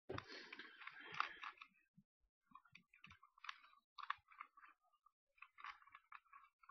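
Plastic Rubik's Cube layers being twisted quickly by hand: dense clicking and rasping for the first second and a half, then short bursts of clicks as moves follow one another.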